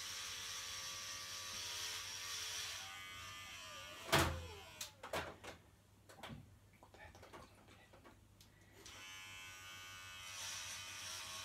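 Electric hair clippers buzzing steadily while cutting hair, dying away just under three seconds in. A loud knock comes about four seconds in, followed by a few clicks, and the clippers buzz again from about nine seconds.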